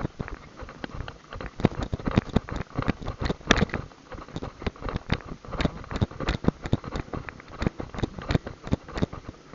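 Trotting horses' hooves and a rattling harness sulky, heard through a camera riding on the sulky: irregular sharp knocks several times a second.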